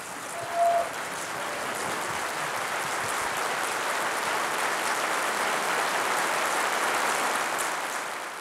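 Audience applauding, building up over the first couple of seconds, holding steady, then fading out near the end.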